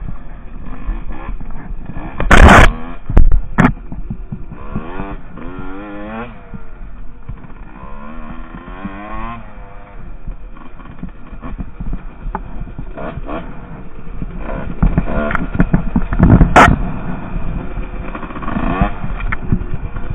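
Husqvarna WR 150 two-stroke dirt bike engine revving up and down while being ridden, its pitch rising and falling again and again. Two loud knocks stand out, one a couple of seconds in and one about three-quarters of the way through.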